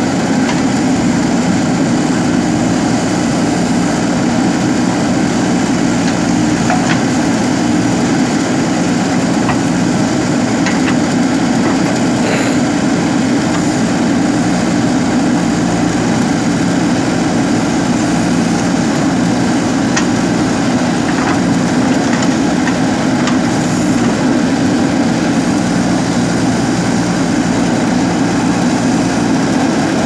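JCB backhoe loader's diesel engine running steadily as the backhoe arm works the drain.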